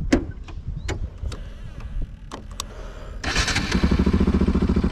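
Bajaj Pulsar RS 200's single-cylinder engine idling through an aftermarket Akrapovic-style exhaust, with a few sharp clicks. About three seconds in, the bike pulls away: the engine note jumps up and keeps rising under throttle, with wind rushing over the microphone.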